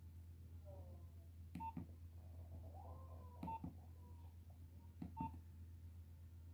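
Nokia 1600 mobile phone keypad pressed three times, roughly every second and a half to two seconds, each press a click with a short beep key tone.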